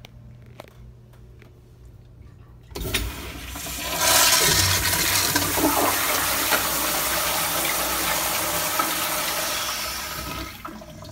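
A 1982 Kohler Kingston toilet flushing: a sudden rush of water starts about three seconds in, quickly gets loud and holds steady, then tapers off near the end.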